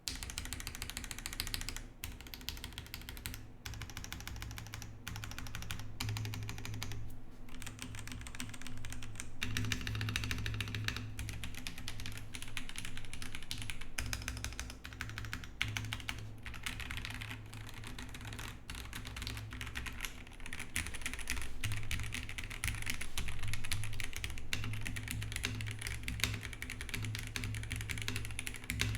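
Typing on a Rover84 V3 mechanical keyboard with lubed Gateron Pro Yellow linear switches and PBT keycaps: a fast, continuous run of keystrokes with a few short pauses.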